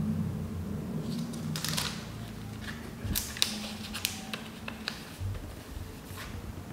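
Paper cards and a clear plastic sleeve being handled: a scatter of short rustles and small clicks. A faint steady low hum runs underneath.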